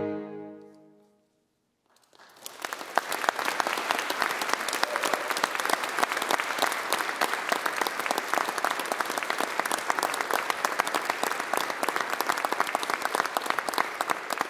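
A saxophone ensemble's final held chord fades out, and after a second of silence the audience breaks into applause that builds quickly and then goes on steadily.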